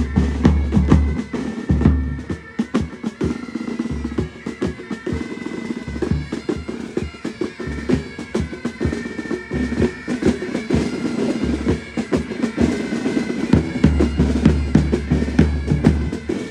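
Military pipe band playing: bagpipes over rapid snare drumming and bass drum beats.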